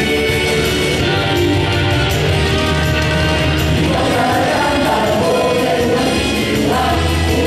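Group of singers performing an Israeli song medley into handheld microphones, over amplified instrumental accompaniment with a strong bass.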